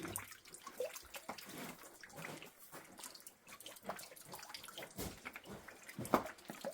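Water from a spring dripping and trickling: irregular drops plopping into water, one louder splash about six seconds in.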